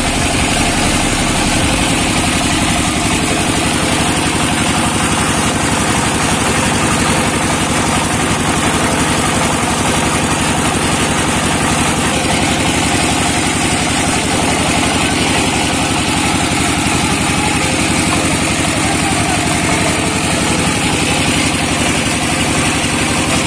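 Single-cylinder 'shallow machine' diesel engine running steadily, driving a screw-type mustard oil expeller.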